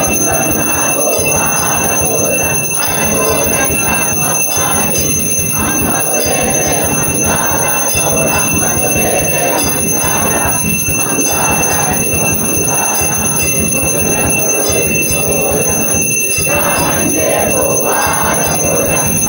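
Temple aarti bells ringing without a break, as steady high ringing tones, over a loud din of music and voices.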